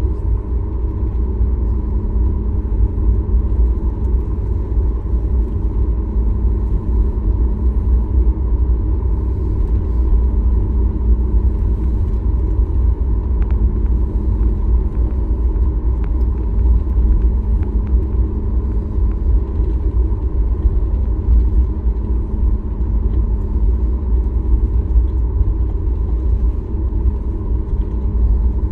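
Cabin noise inside a Boeing 737 MAX 8 with CFM LEAP-1B engines: a loud, steady low rumble of engines and airflow, with a faint steady hum above it, unchanging throughout.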